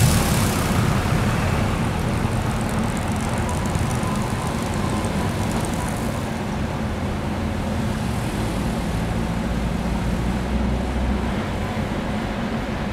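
Sasara snow-sweeper tram Yuki 1 running along the track, its rotating bamboo brooms sweeping snow off the rails with a steady rumble and hiss. The hiss fades about six seconds in as the car moves away.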